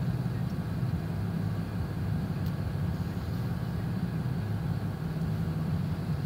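Truck engine idling with the heater running, heard from inside the cab: a steady low hum over a soft even rush.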